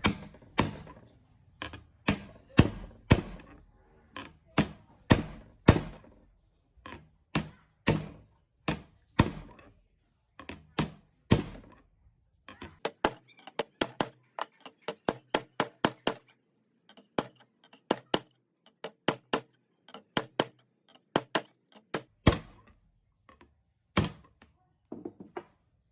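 Hammer blows on metal parts, strong and about two a second at first, then lighter, quicker and more uneven taps in the second half, each with a short metallic ring.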